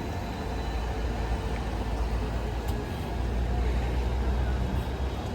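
Bus engine running with a deep, steady rumble amid street traffic, swelling a little louder midway through.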